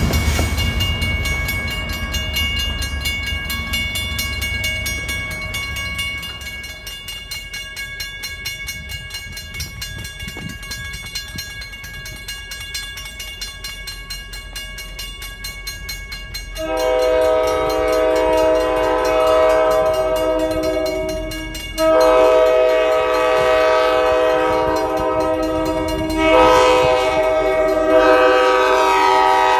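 An MBTA diesel commuter train's rumble fades after it passes, while a level-crossing warning bell rings steadily. About 17 seconds in, the locomotive of an approaching MBTA train sounds its multi-tone horn for the crossing in long blasts, with a brief break near 22 seconds and another change near 26 seconds. The horn is much the loudest sound.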